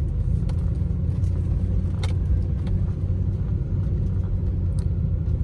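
Car rolling slowly along a campground road, heard from inside the cabin: a steady low rumble of engine and tyres, with scattered light clicks and knocks.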